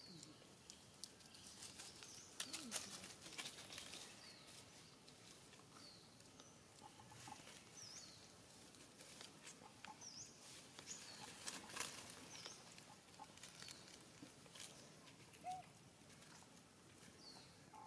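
Near silence: faint outdoor ambience with scattered short, high chirps and a few light clicks or rustles.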